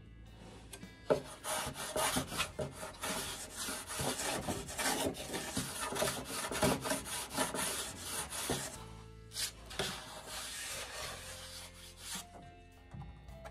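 Balsa wood being sanded by hand in quick, irregular rasping strokes for about eight seconds. The strokes then turn fainter under background music.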